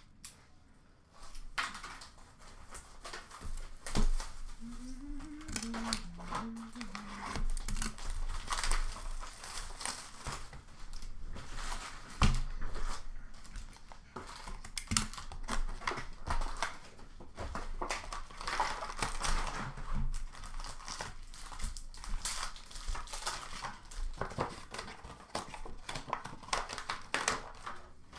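Plastic wrappers of Upper Deck hockey card packs being torn open and crinkled, with cards shuffled and set down in a steady run of rustling. Two sharper knocks stand out.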